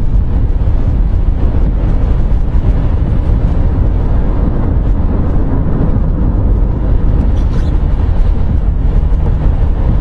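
Steady road, tyre and engine noise inside the cabin of a moving Mercedes-Benz car.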